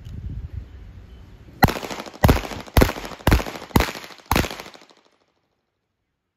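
Six handgun shots fired in quick succession, about half a second apart, each trailing off in a short echo.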